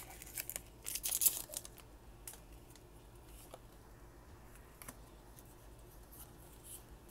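Foil wrapper of a Pokémon booster pack crinkling as it is torn open and the cards are slid out, loudest about a second in, followed by faint clicks of the cards being handled.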